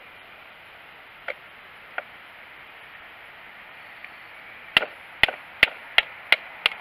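Sharp wooden knocks of a Cold Steel Fin Bear knife being batoned through a stick with a wooden baton. Two light taps come first, then about six hard strikes in quick succession, roughly three a second, near the end.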